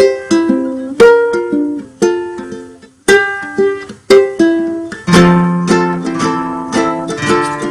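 Instrumental background music on plucked strings, with strummed chords about once a second. A deeper bass part comes in about five seconds in.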